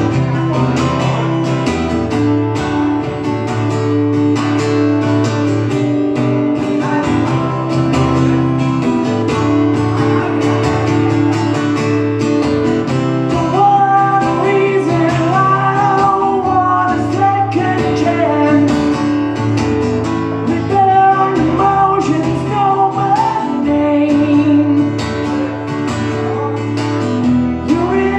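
Live solo performance: an acoustic guitar strummed steadily in chords, with a man's singing voice coming in about halfway through.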